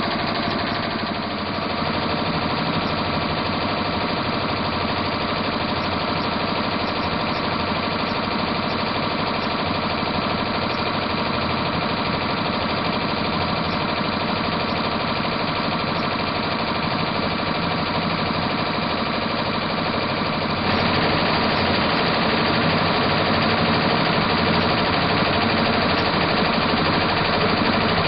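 Multi-needle embroidery machine stitching at speed: a fast, steady mechanical rattle of needle strokes. It gets slightly louder about three-quarters of the way through.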